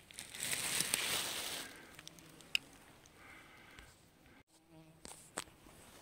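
A loud rustle of leaves and undergrowth lasting about a second and a half, followed by a short insect buzz, a fly or mosquito close to the microphone, and a few light clicks.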